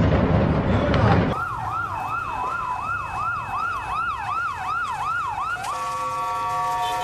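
A loud rumbling noise cuts off about a second in, giving way to an emergency vehicle's siren wailing in fast rising-and-falling sweeps, about two and a half a second. Near the end the siren gives way to a steady horn blaring.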